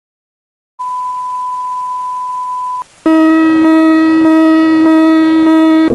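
Mock emergency alert system attention tones. A steady pure beep sounds for about two seconds. After a brief gap, a loud, harsh buzzing alarm tone holds one pitch, with a momentary break near the end.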